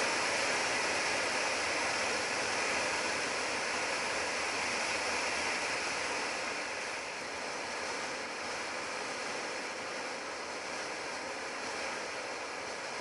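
Steady wind rush over the microphone with road noise from a motorcycle riding at speed on an open highway, easing slightly about halfway through.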